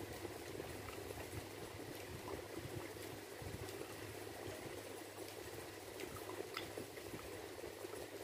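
Fingers kneading and mixing rice on a steel plate, a soft, wet, squishy sound with occasional faint ticks as the fingers touch the plate.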